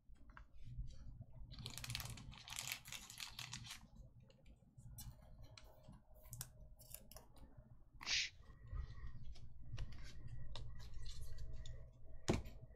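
Chrome trading cards being handled by hand: a run of soft clicks and the rustle of card stock sliding against card stock, with two louder sharp clicks, one about eight seconds in and one near the end.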